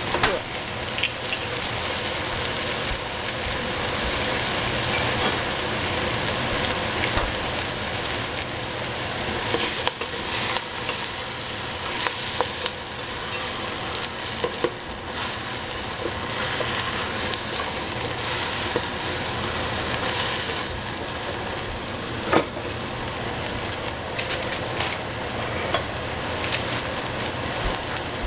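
Hedgehog mushrooms and broccolini sizzling in a hot pan, a steady frying hiss with scattered clicks of a utensil stirring against the pan; one sharper knock about three-quarters of the way in.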